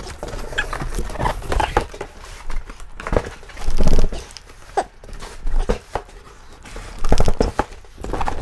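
A large cardboard monitor box being gripped, tipped and set down, with cardboard scraping and rustling and heavy thuds, the loudest about four seconds in and again about seven seconds in.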